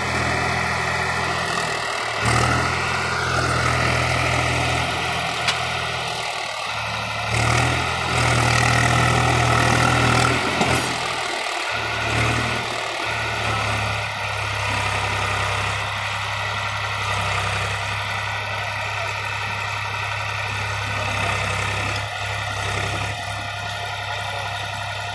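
Swaraj 834 XM tractor's three-cylinder diesel engine running under load as it pulls a fully loaded trolley in deep sand, the revs rising and falling several times. It is loudest from about a third of the way in, then settles to a steady run.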